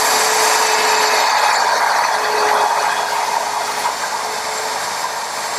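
Router with a guide collar and a half-inch bit running and cutting hinge mortises, the collar following the notch of a template jig: a steady, high whine of the motor and bit in the wood.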